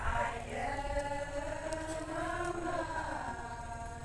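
Adi ponung chant: a high voice sings one long held phrase, its pitch slowly rising and falling.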